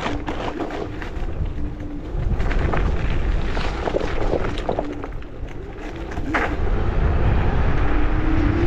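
Electric scooter riding over rough asphalt: a constant low rumble of wind and tyres, with scattered rattling knocks as it goes over bumps. A faint motor whine comes and goes, then rises in pitch near the end as the scooter speeds up.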